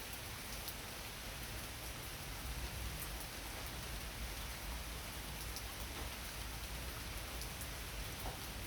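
Pouring rain falling steadily on an apple tree's leaves, a continuous hiss with scattered individual drop patters.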